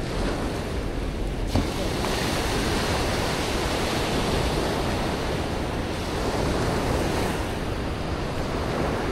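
Small surf breaking and washing up a sandy beach, a steady rush with wind on the microphone; a single light knock about a second and a half in.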